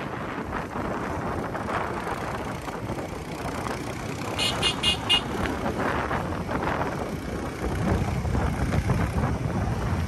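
Motorcycle riding noise, engine and wind on the microphone, with the low rumble growing louder near the end. About four and a half seconds in, a horn gives four quick high beeps.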